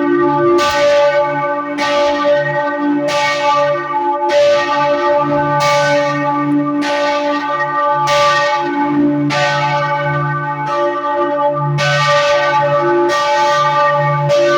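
Church bells of Freiburg Minster ringing the midday (noon) peal. A strike comes about every second and a bit, and several bell tones overlap and hang on under each new stroke.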